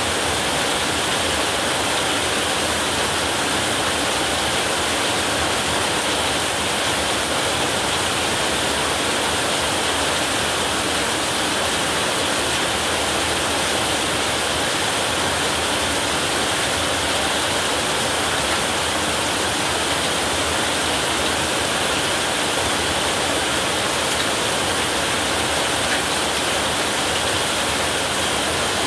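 Heavy rain falling steadily on a roof, a dense, even hiss with no thunder.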